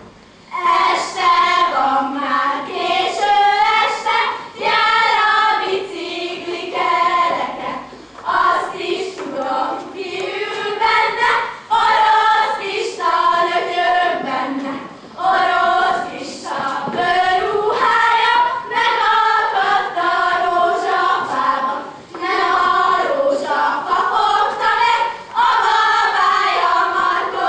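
Young girls singing a Szatmár karikázó folk song together in unison, in short phrases of a few seconds with brief breaks for breath between them.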